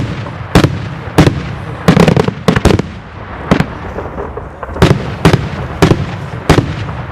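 Daytime fireworks display: about a dozen loud, sharp bangs in an irregular series, some coming in quick clusters, each followed by a short echo.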